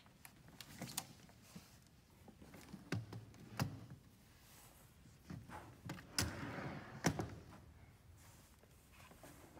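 Scattered knocks and thuds of a large hard-sided trunk and cardboard boxes being carried, set down and shifted on a wooden stage floor, with a short scraping slide about six seconds in.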